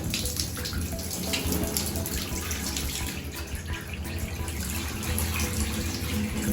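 Water collected overnight by a Pro Breeze dehumidifier, poured out of its full collection tank in a steady splashing stream.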